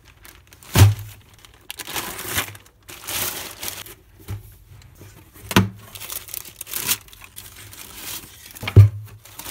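Tissue paper rustling and crinkling in irregular bursts as a cardboard shoebox is opened and a running shoe is unwrapped. Three sharp knocks with a dull thud come through, the loudest near the end.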